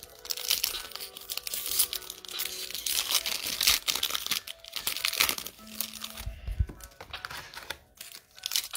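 Foil wrapper of a Panini Prizm basketball trading-card pack crinkling and tearing as it is ripped open and peeled apart by hand.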